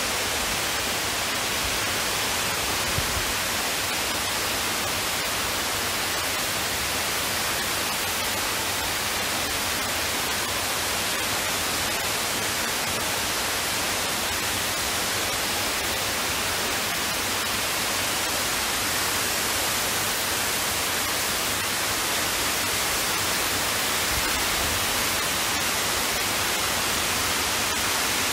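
Steady rushing hiss of falling water from a large indoor waterfall, even and unbroken.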